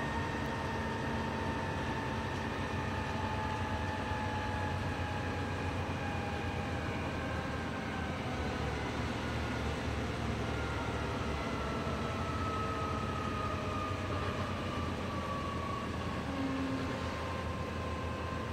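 Volvo B7TL double-decker bus's six-cylinder diesel engine and driveline running on the move, heard from inside the passenger saloon, with road and body noise. A faint whine slowly falls in pitch, fades, then returns higher later on and falls again.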